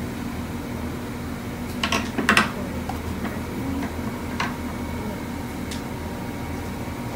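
Steady low hum of machinery, with a short cluster of sharp knocks and clatter about two seconds in and a few lighter clicks after it.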